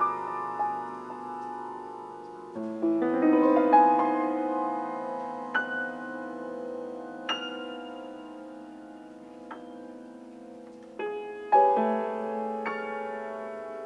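Solo grand piano playing a slow nocturne passage. Chords are struck and left to ring and fade, with sparse single high notes between them and a fresh chord near the end.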